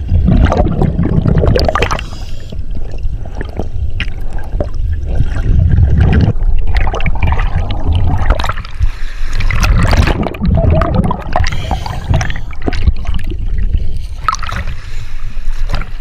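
Underwater bubbling and gurgling from a scuba diver's exhaled breath through the regulator. It comes in loud rumbling surges every few seconds, with quieter stretches between breaths.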